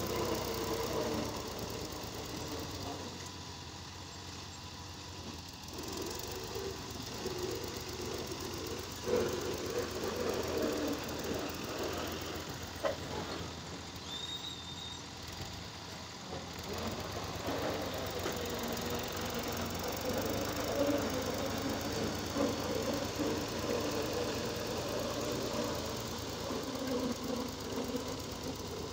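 Farm tractor's diesel engine running while it powers the hydraulic tipper of a trolley, raising the bed to dump a load of soil, with a few sharp knocks along the way.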